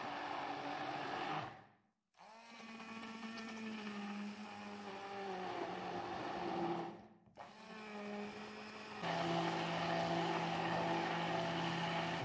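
Immersion blender motor puréeing apricot pieces in a plastic jug, run in three bursts: it stops briefly about two seconds in and again about seven seconds in, spinning back up each time. The last burst, from about nine seconds in, is the loudest and cuts off at the end.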